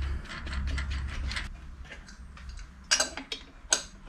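Small metal clicks and clinks of the mill table's hold-down studs, nuts and clamps being fitted by hand, a quick run of light ticks at first, then a few sharper clinks about three seconds in as an adjustable wrench goes onto a nut.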